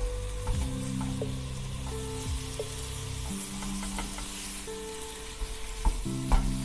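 Meat sizzling in a frying pan on the stove as it is stirred, with the utensil knocking against the pan now and then.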